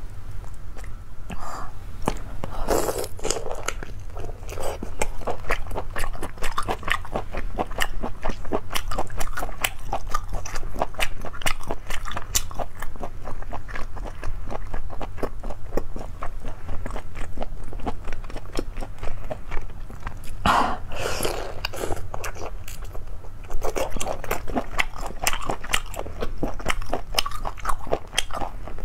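Close-miked chewing and biting of firm, sauce-dipped sea snail meat: dense, rapid crunchy clicks throughout, with two louder bursts, about three seconds in and again around twenty seconds in.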